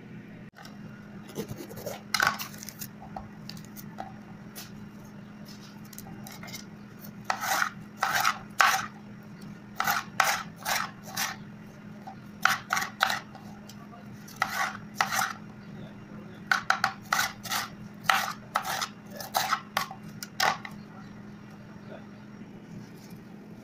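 Knife chopping red bell peppers on a wooden cutting board, in runs of quick strokes with short pauses between, over a faint steady hum.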